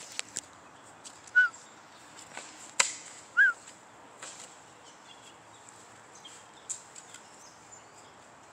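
Shovel blade cutting and scraping into soil and gravel, a few sharp knocks spread out, the strongest about three seconds in. Two short, loud bird chirps stand out, about a second and a half and three and a half seconds in.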